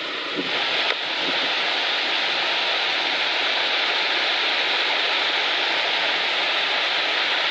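Waterfall water rushing as a steady, even hiss, a little louder from about a second in.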